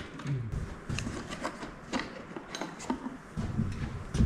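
Scattered light metallic clicks and clinks of steel bolts being handled and started into a Powerglide transmission pump.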